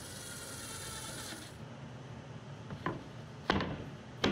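Cordless drill driving a screw into a wooden support strip, a steady whine for about a second and a half. Then a particle board panel is set down into the wooden frame with a light click and two sharp knocks near the end.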